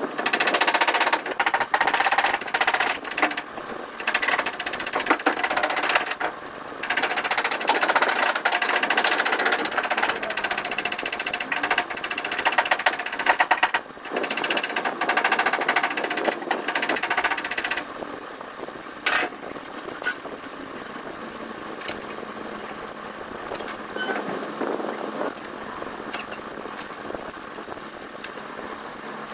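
Rapid repeated mechanical impacts, a fast hammering rattle, in several long bursts, giving way to fainter, steadier noise with occasional clicks after about eighteen seconds.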